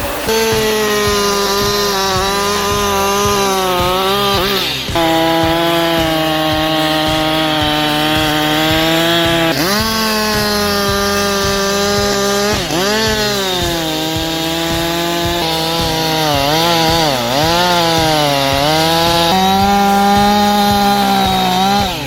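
Chainsaw running at high revs while cutting wood, its engine note held high and then dipping and recovering several times as the chain bites into the wood.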